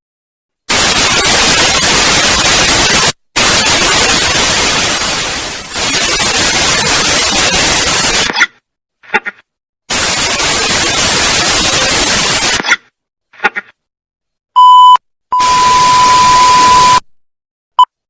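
Loud static hiss in three long stretches of a few seconds each, then a short steady beep and a longer beep laid over hiss near the end: sound-effect clips played one after another.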